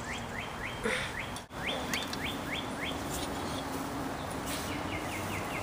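A songbird singing runs of quick rising whistled notes, about three or four a second, in several series. The sound drops out briefly about one and a half seconds in.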